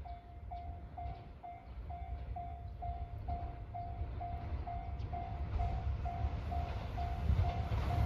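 Japanese level-crossing warning bell ringing about twice a second, each stroke a short ringing tone, while the low rumble of an approaching train grows steadily louder.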